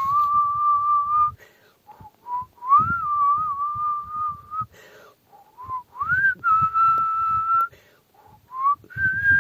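High, clear whistling in long held notes, each starting with a short upward slide, the pitch creeping a little higher over the four notes, with a low rushing noise underneath.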